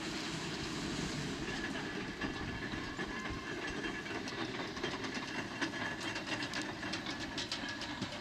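Erie Type A steam shovel at work: a steady run of steam hiss and mechanical clatter, with quick rattling clanks coming thicker over the last couple of seconds.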